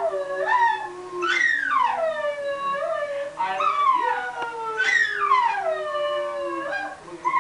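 Miniature collie howling in a string of rising-then-falling, sing-song howls, two of them long and drawn out. This is its 'I love you' answer to the person's words. A lower, steady, slowly falling voice is held beneath the howls.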